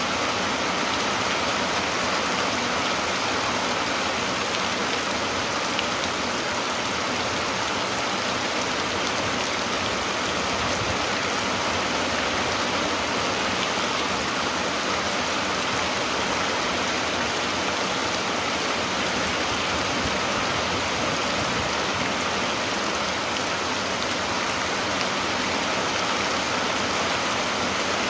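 Steady rain falling: an even hiss with no single drops, gusts or breaks standing out.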